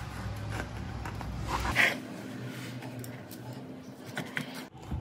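Kitchen knife cutting through a soft bread sandwich down onto a wooden chopping board: faint, with one short, louder knock about two seconds in and a few small clicks near the end.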